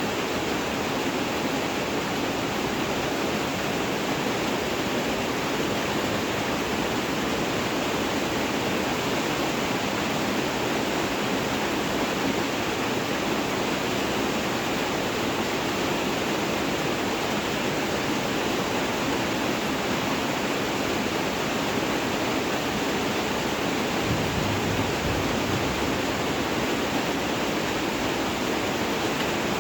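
Steady, dense rain falling, an even hiss with no distinct drops standing out. A brief low rumble comes in about four-fifths of the way through.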